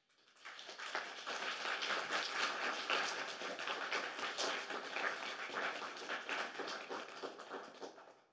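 Audience applauding, building up within the first second, then fading out near the end.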